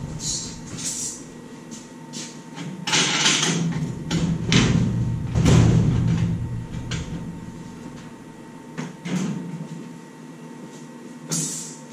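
Irregular knocks, rattles and short scrapes of things being handled in a workshop, loudest in a cluster a few seconds in and again near the end, over a steady low hum.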